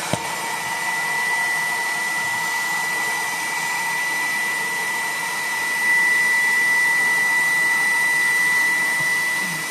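Filter Queen Model LD33 vacuum cleaner running steadily: a constant rush of air with a high, steady whine, getting a little louder about six seconds in.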